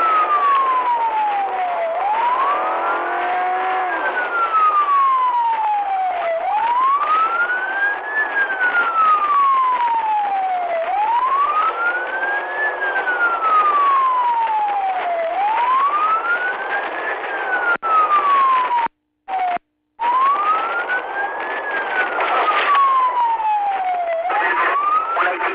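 Police car siren in wail mode: the pitch climbs, then slides slowly back down, about once every four and a half seconds, over steady road and engine noise. The sound cuts out completely twice for a moment about three quarters of the way through.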